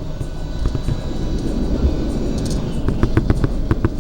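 Argo Bromo Anggrek passenger train running at speed, heard from on board: a steady low rumble, with a quick run of sharp clacks from the wheels on the track about three seconds in.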